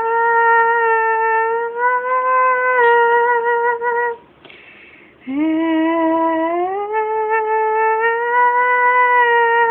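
A woman humming long, steady held notes, with a pause for breath about four seconds in, after which she starts on a lower note and slides up.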